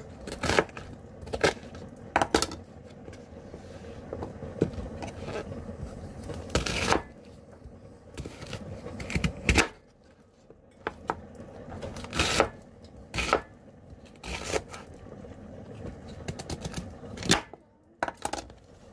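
A kitchen knife cutting fennel bulbs on a wooden cutting board: irregular sharp knocks of the blade against the board, with a few longer slicing strokes.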